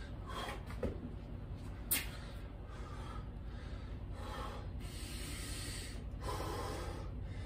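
A man breathing hard in short noisy puffs while doing burpees, with a sharp knock about two seconds in.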